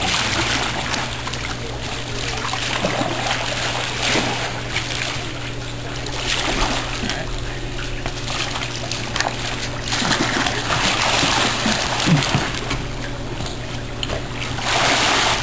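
Water splashing and trickling around a kayak in a swimming pool, coming in several louder bursts over a steady low hum.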